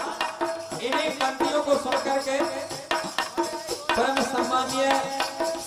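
A male voice singing a Bundeli folk bhajan through a microphone and loudspeakers, over a steady beat of hand drums and jingling percussion.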